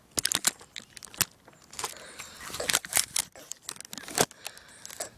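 Footsteps crunching over dry ground at an uneven pace, each step a sharp crackly crunch.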